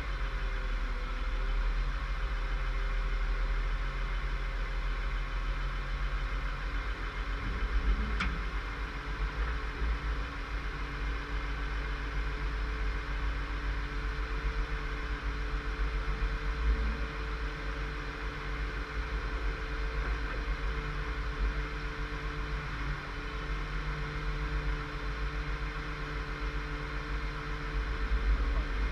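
Vehicle engine idling steadily, with a single sharp click about eight seconds in.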